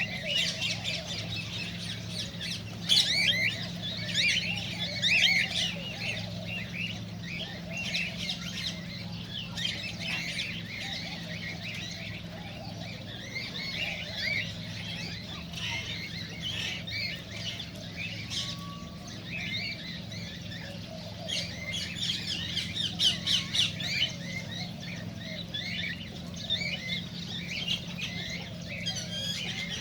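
Cockatiels chirping and squawking, with many short calls overlapping and busiest about three to five seconds in and again past twenty seconds. A steady low hum runs underneath.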